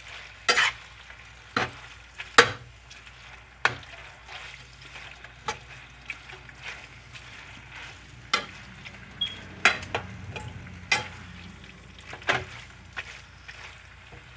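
Pad thai noodles sizzling as they fry in a frying pan, stirred and turned with a slotted spatula that knocks and scrapes against the pan a dozen or so times at irregular intervals, loudest about two and a half seconds in.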